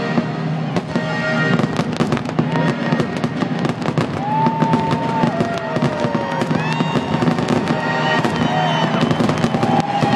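Aerial fireworks display, many shells bursting in rapid succession with loud bangs and crackling, while music plays underneath.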